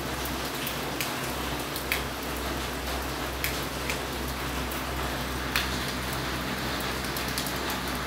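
Steady rain falling, with scattered louder drops tapping close by, the sharpest about five and a half seconds in.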